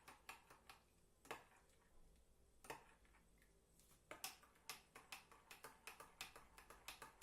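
Faint clinks of a spoon stirring in a glass of warm milk: a few scattered taps at first, then a quicker, uneven run of about three or four a second from about four seconds in.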